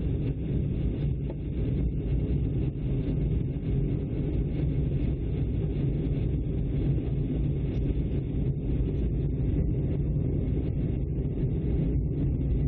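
Steady low drone of a jet airliner heard inside the cabin at a window seat, jet engines and rushing airflow blended into an even rumble, as the plane descends toward landing.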